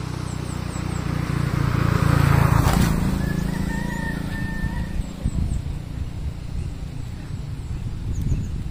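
A vehicle passes on the bridge with a low rumble that swells to its loudest about two and a half seconds in, then fades. A distant rooster crows once, starting about three and a half seconds in. Gusts of wind buffet the microphone after that.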